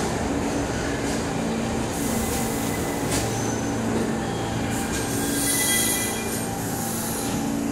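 New York City subway train moving through an underground station, its steel wheels squealing on the rails over a steady low hum. A louder, higher squeal comes in about five seconds in.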